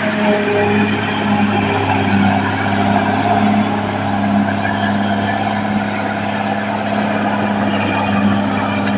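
Caterpillar D6R XL bulldozer's diesel engine running with a steady, even note.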